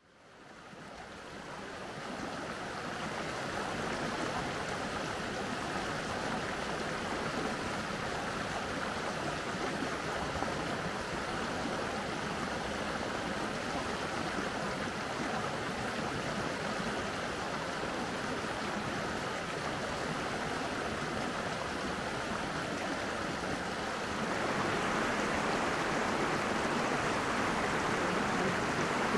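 Mountain stream flowing: a steady rush of water that fades in over the first few seconds and gets a little louder about 24 seconds in.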